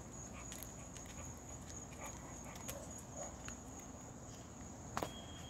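Faint, distant dogs barking, under a thin steady high tone and a few small clicks, with a sharper click about five seconds in.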